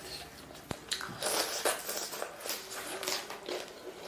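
A person eating close to the microphone: irregular bites and chewing, with one sharp knock less than a second in.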